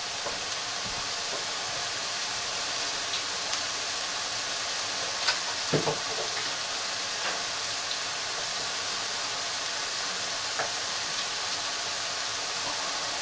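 Mushrooms, onions and garlic sizzling in a pan on high heat as pats of butter melt into them: a steady frying hiss with a few small pops and crackles.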